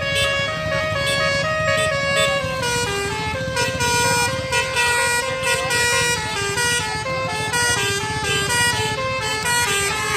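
Bus basuri musical air horn playing a tune of held notes that step up and down, with a steady low rumble beneath.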